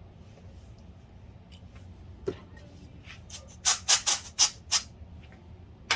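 Sharp clicks and scrapes of parts being handled during reassembly of a PS3: a single faint click, then about halfway in a quick run of about five loud short strokes over a low steady hum.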